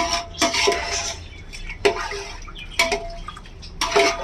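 Water being poured from a measuring vessel into a metal cooking pot, with several sharp metallic clinks as the vessel knocks against the pot's rim.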